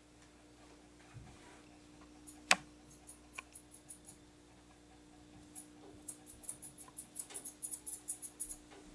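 Curved grooming scissors snipping the fur around a dog's paw: a quick run of short, crisp snips, several a second, in the second half. Earlier there is one sharp click about two and a half seconds in, then a few lighter clicks. A faint steady hum sits underneath.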